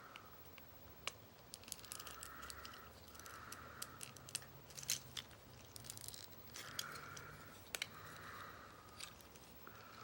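Faint handling of a plastic Transformers figure during transformation: scattered sharp plastic clicks as parts are moved and pegged together, with a few soft rubbing swishes.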